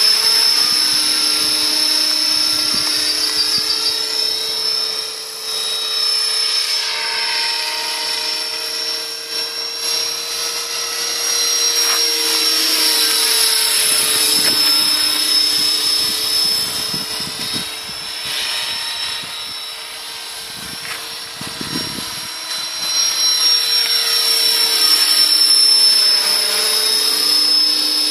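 Radio-controlled scale model Hughes 500 helicopter flying overhead: a steady, high-pitched motor and rotor whine. It grows fainter around two-thirds of the way through and louder again near the end as the helicopter moves away and comes back.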